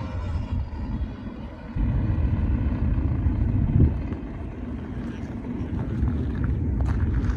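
Wind buffeting the microphone in gusts, the loudest sound, over the faint, steady drone of a paramotor's EOS 150 engine in flight.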